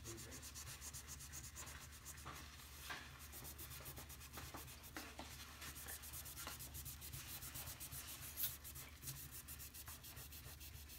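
A wad of paper scrubbed fast back and forth over a wooden tabletop, working a gritty toothpaste-and-baking-soda paste into permanent-marker scribbles to rub them off: a faint, quick, repeated rubbing.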